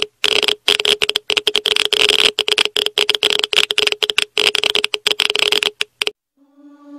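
Dense, irregular crackling static that stops abruptly about six seconds in. A choral chant begins to fade in just before the end.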